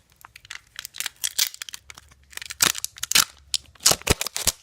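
Plastic packaging of a set of foam beads being opened by hand: a run of irregular crinkling and tearing rustles, busiest and loudest in the second half.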